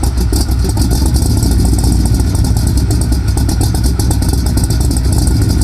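Squarebody Chevrolet K5 Blazer engine idling steadily through headers with an exhaust leak, running near stalling; the owner puts it down to ignition timing that needs adjusting.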